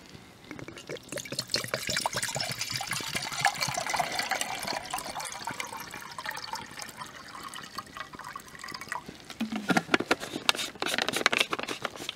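Water pouring from a plastic canteen bottle into a metal cooking pot, the pitch slowly rising as the pot fills. The pour ends after about eight seconds and is followed by several sharp knocks and rustling near the end.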